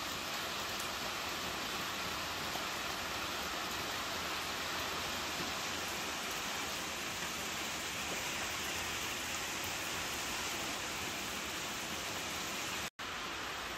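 Rain falling steadily on a garden and wet paving, an even hiss. The sound cuts out for an instant near the end.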